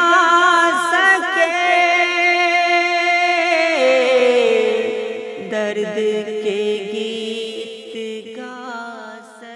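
The end of a sung Urdu ghazal. A singer draws out the last phrase with wavering, ornamented pitch; then the music settles onto steady held notes and fades out.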